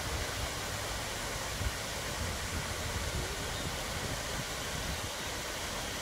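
Water cascading down a tiered rock waterfall: a steady rushing noise, with a low rumble underneath and a soft thump a little under two seconds in.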